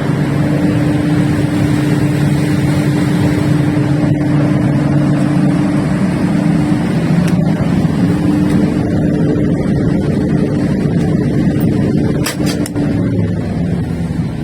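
Large Perkins diesel engine of a 1400 kVA generator set running steadily under test: a loud, even drone with a held tone over it. A few sharp clicks come about twelve seconds in.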